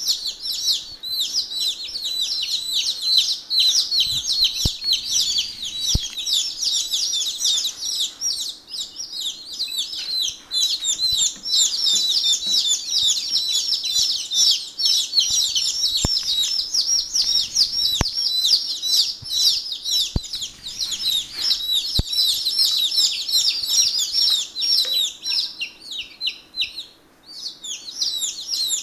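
A brood of day-old chicks peeping continuously, many high-pitched peeps overlapping, with a short lull near the end.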